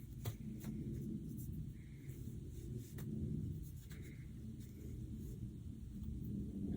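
Faint rustling and handling noise from a stretchy fabric head wrap being adjusted and earrings being put in, with a few soft scattered clicks over a low rumble.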